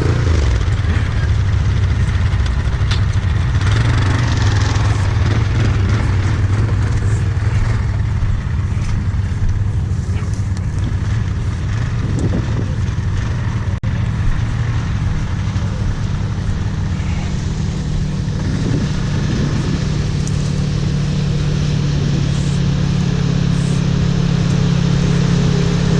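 ATV engine running steadily at low speed, its pitch climbing a little in the last few seconds.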